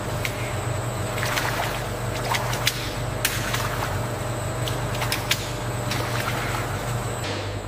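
Cheese curds and whey sloshing and splashing as two steel curd forks are pushed through them in a stainless-steel vat, with scattered sharp clinks of metal. A steady low machine hum runs underneath.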